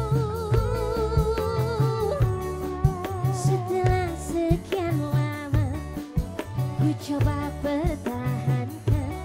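Live dangdut band music: a wavering, sustained melody line over a repeating drum beat.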